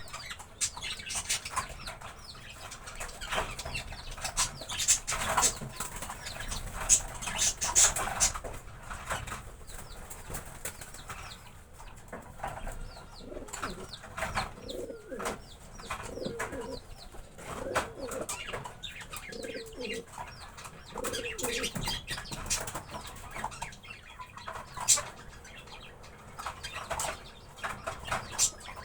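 Pigeons flapping their wings in many short fluttering bursts, with low cooing calls through the middle stretch.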